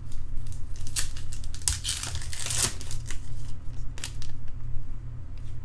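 Plastic wrapper of a trading-card pack crinkling and tearing as it is opened, with a few sharp clicks of cards being handled, over a steady low electrical hum.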